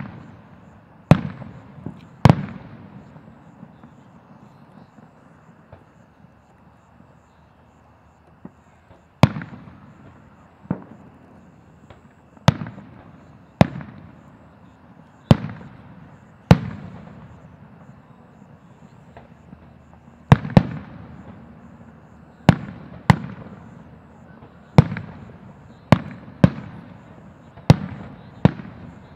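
Aerial fireworks shells bursting: about eighteen sharp booms, each dying away in an echo. After the first three there is a pause of several seconds, then the bursts come every second or two, some nearly on top of each other.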